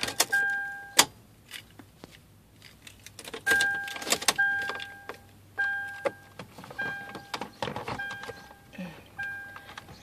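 Climate control panel buttons of a 2006 Toyota 4Runner being pressed: each press gives a click and a short electronic beep. About seven beeps, spread through, each lasting about half a second.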